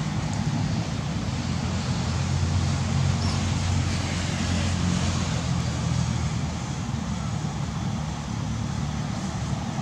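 Steady low rumble of road traffic with an even outdoor hiss, swelling a little in the middle.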